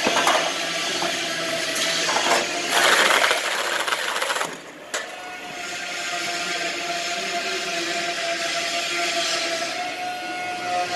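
Siat XL33.PC automatic carton taping machine running, with a steady whine from its belt drives over a mechanical clatter. There are louder rushing bursts about three to four seconds in, then a brief quieter dip that ends in a sharp click.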